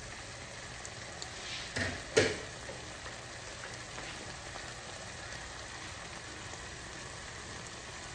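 Chicken and potato chunks simmering in a brown sauce in a stainless-steel skillet, a steady bubbling sizzle. Two short knocks come about two seconds in.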